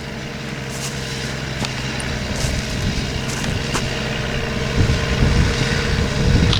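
Tractor engine pulling a plough and drawing closer, its steady hum growing louder, with a few light clanks.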